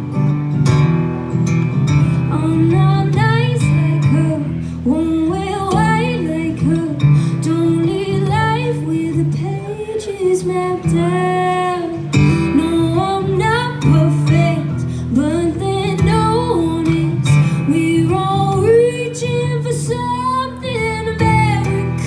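A woman singing with her own strummed acoustic guitar in a live solo set. The guitar plays alone for the first few seconds, then the voice comes in.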